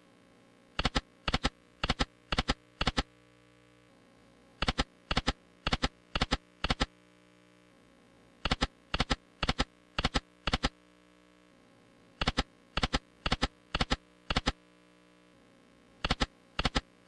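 Lightning Link Sahara Gold video slot's reel-stop sound effects: five short double clicks in quick succession as the reels stop one after another, repeating about every four seconds with each spin. The spins are losing ones, so no win tune plays.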